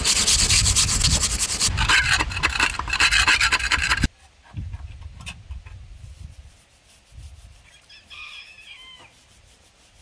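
Loud, rough rubbing or scraping noise that cuts off abruptly about four seconds in. Quiet follows, with faint knocks and a brief faint call near the end.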